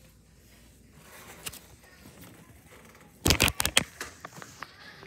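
Handling noise on the recording device: a quick cluster of sharp knocks and scrapes about three seconds in, after faint room noise, followed by a few lighter ticks.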